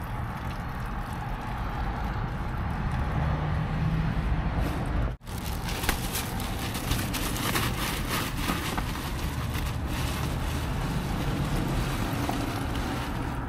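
Subaru's engine idling steadily with the hatch open, while a bag of ice and a plastic cooler are handled, giving rustles and small clicks from about the middle on. The sound cuts out for an instant about five seconds in.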